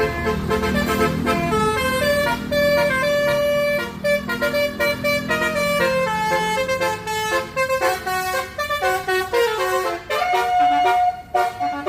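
Bus telolet horns playing a quick melody of stepped, chord-like notes, over the rumble of a bus engine that fades out about halfway through.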